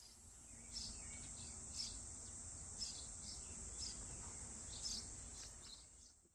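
High, short chirps, bird-like, about once a second over a steady high hiss and a low rumble, fading out at the end.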